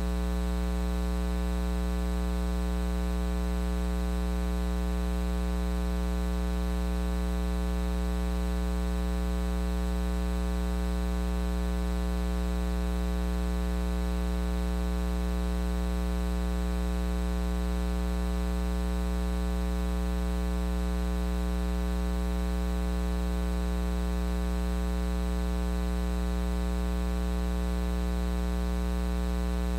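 Steady electrical mains hum, a buzzy low drone with many overtones, unchanging in pitch and level.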